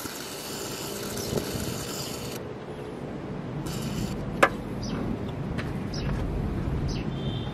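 Aerosol cleaner sprayed through a thin extension straw into a dirty throttle body: a steady hiss lasting about two and a half seconds, then a shorter burst of spray. A single sharp click follows a moment later.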